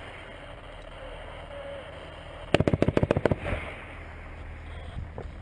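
A burst of automatic gunfire, about a dozen rapid shots in under a second, about two and a half seconds in, with a dull background rumble before and after.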